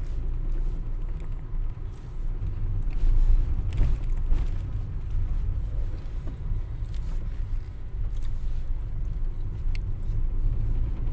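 Low, steady rumble of a car's engine and tyres heard from inside the cabin as it drives slowly out of a car park, with a couple of faint clicks.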